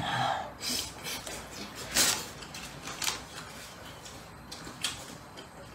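Close-miked eating sounds: a bite into a fried piece from spicy noodle soup, then chewing, with a loud, sharp, breathy slurp or sniff about two seconds in and a few short clicks later.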